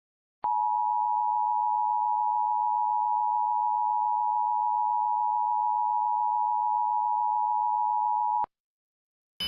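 Emergency Alert System attention signal: two steady tones sounded together as one alarm, held for about eight seconds and cut off suddenly. It is the alarm that comes before an emergency alert message is read.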